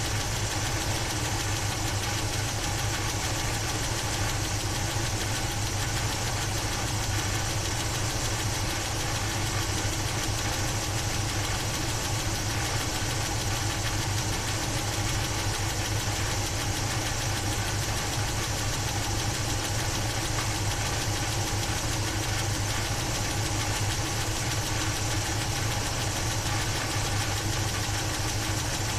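Chevrolet 350 small-block V8 idling steadily, with the air cleaner off the carburetor.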